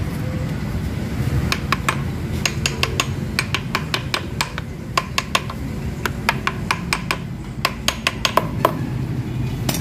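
Sharp metallic clicks and clinks of hand tools on the bolts and housing of a Mitsubishi Strada's differential assembly, coming irregularly and often in quick runs of two or three, as the ring-and-pinion clearance is being adjusted. A steady low rumble sits underneath.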